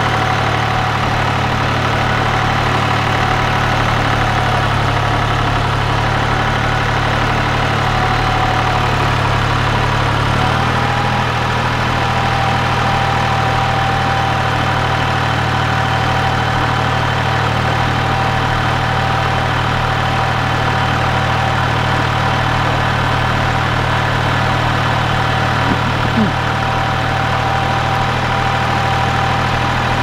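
Ford 1710 compact tractor's three-cylinder diesel engine running steadily as the tractor drives with a loaded front bucket. The engine note shifts slightly about ten seconds in.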